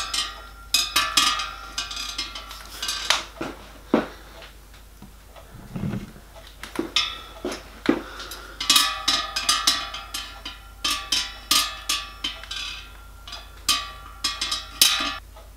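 Metal clinking and knocking against a small copper boiler as a long brass/copper stay rod and tools are worked through it to line the stay up with its hole: bursts of quick, ringing metallic taps with quieter pauses between.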